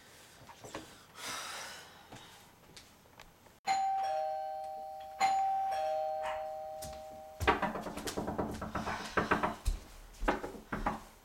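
Two-tone doorbell chime, ding-dong, rung twice about a second and a half apart, each chime fading away. It is followed by a few seconds of irregular, louder sounds.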